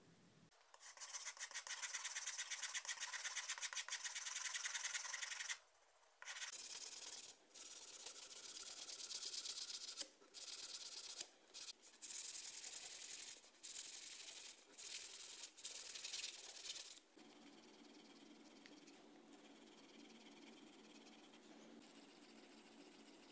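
Hand sanding with a sanding block against the end of a wooden snooker cue: a dry, hissy rubbing in rapid short strokes, stopping briefly several times. From about 17 seconds in it turns to a quieter, lower rubbing.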